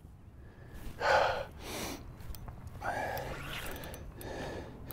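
A man breathing hard, a few heavy gasping breaths in and out, the loudest about a second in, from the strain of fighting a big fish on a bent rod.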